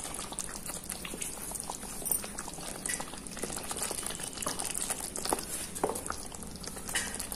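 Thick butter chicken gravy with fresh cream simmering in a pan, small bubbles popping irregularly, while a wooden spatula stirs through it.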